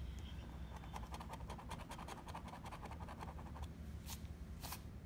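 A coin scratching the coating off a lottery scratch-off ticket in a quick run of short, even strokes for about three seconds, then two separate scrapes near the end.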